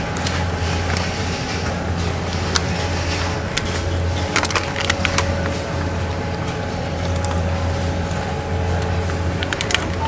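Steady low hum of supermarket refrigerated shelving and air conditioning, with faint steady tones above it. A few sharp clicks of plastic egg packs being handled on the shelf are heard at irregular moments.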